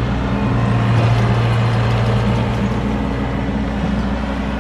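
Yanmar YH850 combine harvester's diesel engine and threshing machinery running with a steady low drone as the machine drives into standing rice to cut it.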